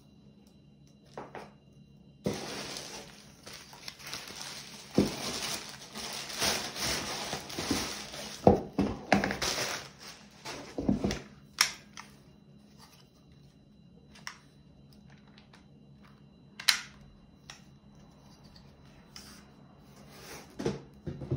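Packaging being opened and handled: several seconds of crinkling, rustling and tearing with sharp knocks, then scattered clicks and knocks as pieces are moved about.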